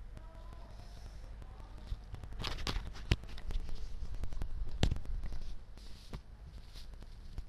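A run of sharp clicks and knocks over a steady low hum, starting about two and a half seconds in and stopping about six seconds in.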